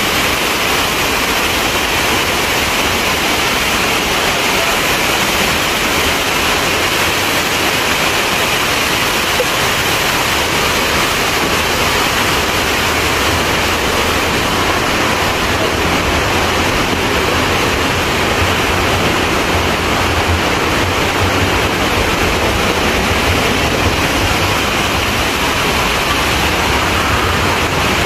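Steady, loud rush of water pouring over a dam and down its falls.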